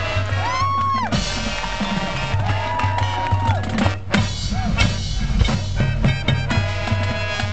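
Marching band playing: brass with drumline and bass drums, held brass notes sliding up and down in pitch over a steady drum beat.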